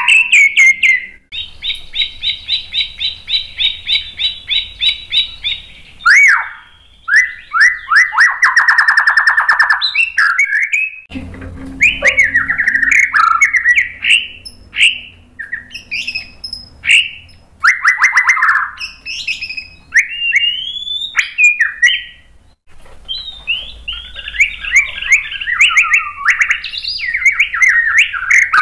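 A white-rumped shama singing loudly: a fast run of evenly repeated notes, then rapid trills and varied whistled phrases with short pauses, ending in a dense, quick-fire string of notes. This is its showy 'isian' song of learned and mimicked phrases.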